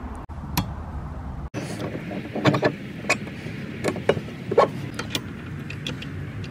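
A handful of sharp metallic clinks and taps as a stainless steel shaft coupler is slid onto a boat's propeller drive shaft and handled against the transmission flange. A steady low rumble comes before them.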